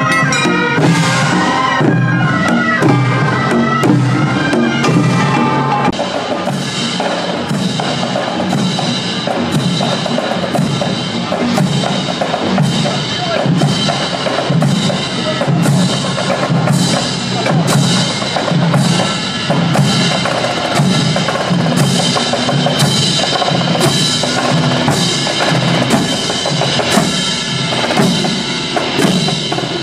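Music with a steady drum beat running throughout.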